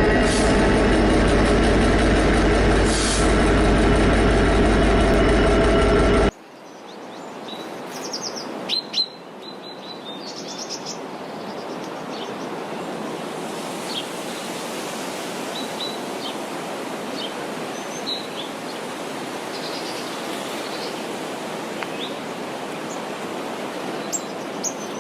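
A train running, loud and steady, cutting off abruptly about six seconds in. Then an outdoor ambience: a steady hiss with birds chirping now and then.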